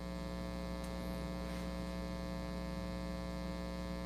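Steady electrical mains hum with many even overtones, coming up a little louder just as it starts and then holding level.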